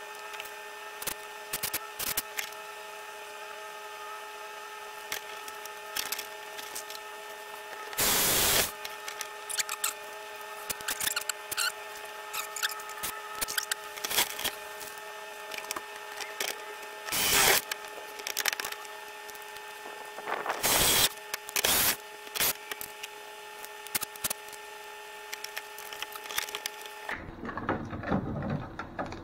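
Cordless drill running in three short bursts, driving screws up into the RV's underside, with small clicks and knocks of handling the tool and parts in between. A steady hum with several tones sits underneath until it stops just before the end.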